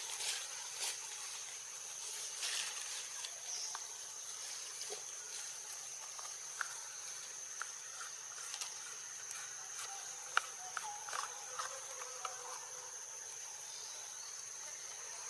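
Steady high-pitched insect drone, with scattered faint clicks and a few short chirps.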